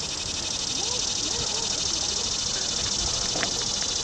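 Insects trilling in the surrounding grass and trees: a steady, high, fast-pulsing chorus, with faint voices of the waiting crowd.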